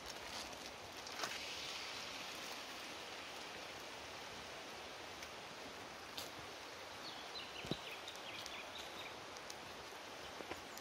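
Raw prawns sizzling in hot oil in a frying pan on a gas camp stove: a steady, even hiss that builds about a second in as they hit the pan, with a few light knocks.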